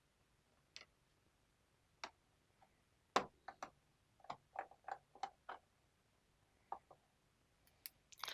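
Faint, scattered small clicks and light taps of a screwdriver working the small bottom-case screws of a laptop, with a cluster of them between about three and six seconds in.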